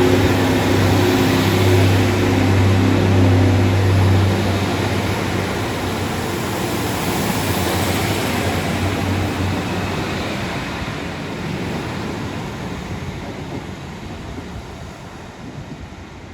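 Diesel multiple unit train moving off, its engines holding a steady note for the first four seconds. After that the rumble of the train fades away steadily as it leaves.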